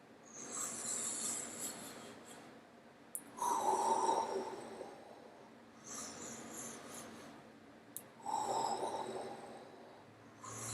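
A man breathing slowly and deeply in and out through a rib-opening breathing exercise, about two full breaths, each breath drawn in and then let out at length.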